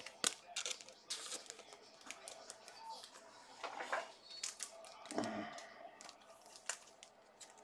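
Faint crinkling and tearing of trading-card packaging being handled, with scattered sharp clicks and crackles at irregular times.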